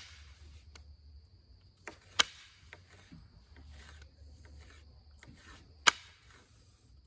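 Onondaga chert being knapped: two sharp clicks of the stone as flakes snap off, about two seconds in and near six seconds in, with lighter scraping and rubbing of the stone between them.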